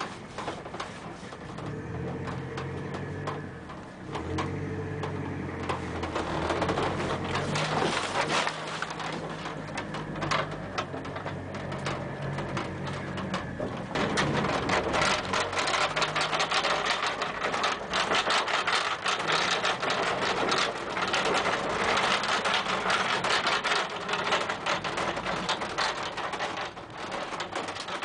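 A vehicle driving over a rough track: a low engine hum that shifts in pitch through the first half, under a steady clatter and rattle of the bodywork jolting over bumps.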